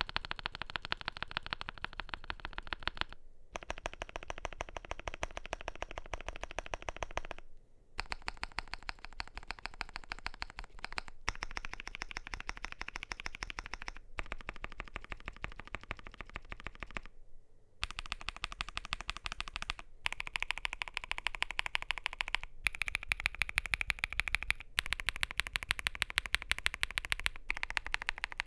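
Fast, continuous typing on a CIDOO V87 mechanical keyboard with lubed and filmed CIDOO Mint linear switches and PBT keycaps on a gasket-mounted polycarbonate plate: a dense clatter of keystrokes, broken by short gaps every few seconds.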